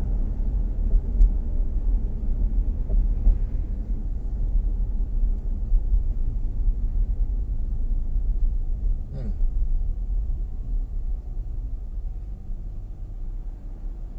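Road and engine noise heard inside a moving car's cabin: a steady low rumble that eases somewhat near the end as the car slows behind a truck.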